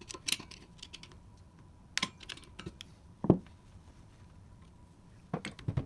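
Hand tools being handled and set down: scattered light clicks and clinks, with one louder knock about three seconds in.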